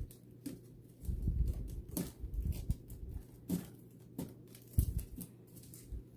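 Handling noise from crafting with artificial flowers: irregular light clicks and rustles with low bumps as an artificial floral stem is snipped with wire cutters and worked into the wreath. The sharpest click comes about three-quarters of the way through.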